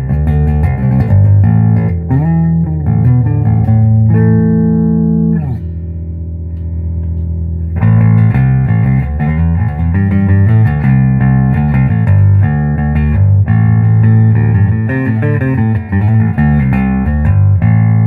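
Fender '57 reissue Precision Bass played through a 1966 Ampeg B-15N Portaflex amp, a run of plucked notes. About five seconds in, a held note slides down in pitch and rings more quietly for a couple of seconds, then busy playing resumes.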